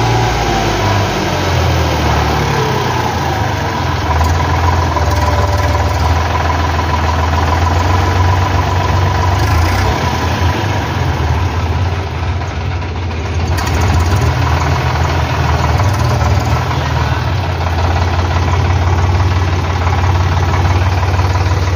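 Farm tractor's diesel engine running steadily, a deep even drone, while it pulls a loaded trolley slowly along.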